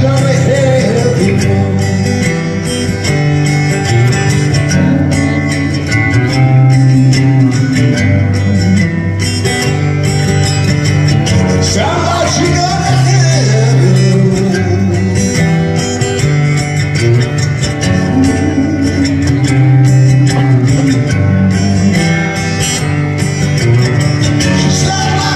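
Solo amplified acoustic guitar played live, a steady picked and strummed rhythm with a moving bass line, with a man singing over it through the PA.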